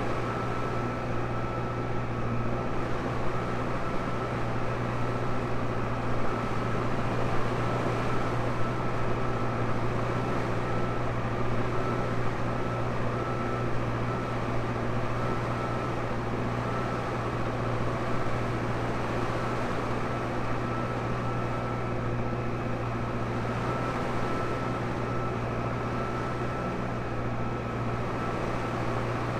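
Tractor engine running steadily under load while ploughing, a constant low drone with a thin high whine held over it.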